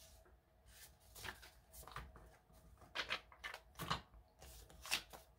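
Paper prop-money bills rustling and flicking as they are counted and shuffled by hand, a string of short, irregular crisp rustles.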